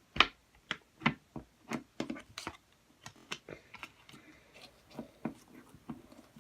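Slime squished and pulled in the hands, making an irregular run of sharp clicks and small air pops, roughly two a second.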